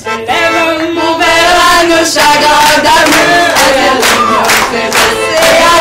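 A loud crowd of many voices singing and shouting together at once.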